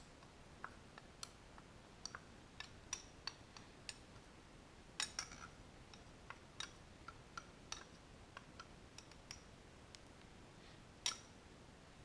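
Light, irregular clicks and taps of small hard objects being handled and set down on a work surface while casting urethane parts, with a louder cluster about five seconds in and a sharper tap near the end.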